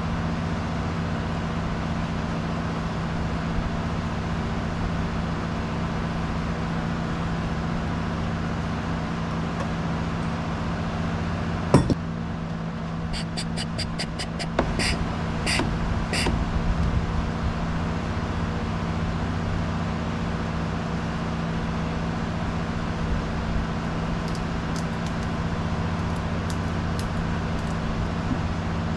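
A steady low engine drone, with a sharp knock about twelve seconds in and then a quick run of metallic clinks as tools are handled at the outboard motor.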